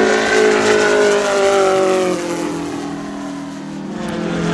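Engine of a model Pitts S-2C Special aerobatic biplane flying past overhead. Its steady drone drops in pitch about two seconds in as the plane passes, fades a little, then swells again near the end.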